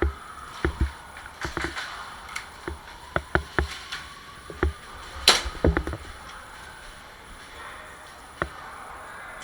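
Airsoft gunfire: scattered sharp cracks and snaps in small clusters, the loudest about five seconds in, thinning out over the last few seconds.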